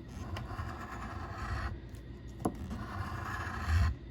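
Scratch-off lottery ticket being scratched, its coating scraped away in two stretches of rapid rasping strokes with a brief pause between them.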